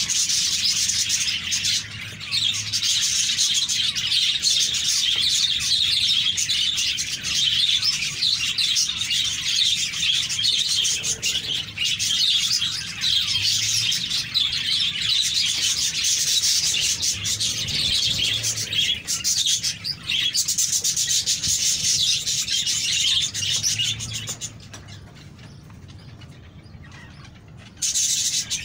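Many small birds chirping and twittering continuously in a dense chorus. It drops away suddenly about three-quarters of the way through for a few seconds, then comes back near the end.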